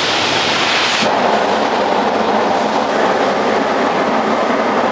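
Self-service car floor-mat cleaning machine running, its brushes working a fabric car mat pushed into its slot. A steady rushing hiss gives way about a second in to a dense, rattling churn as the mat is brushed.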